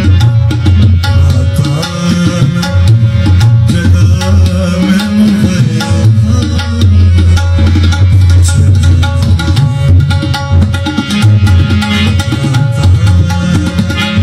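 Tabla played in a continuous rhythm, its deep bass drum strongest, over a harmonium holding steady chords: an instrumental passage between sung verses of a Punjabi folk song.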